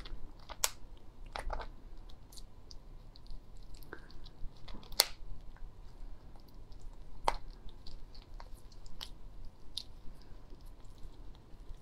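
The hard shell of a raw slipper lobster clicking and cracking as fingers pry it apart: a scattering of sharp cracks, the loudest about five seconds in.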